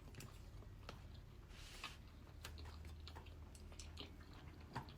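Faint close-up chewing of a salmon and avocado sushi roll, with soft mouth clicks at an uneven pace.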